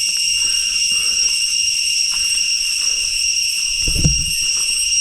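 Jungle insects giving a loud, steady, high-pitched drone with a clear ringing tone. A low thump comes about four seconds in.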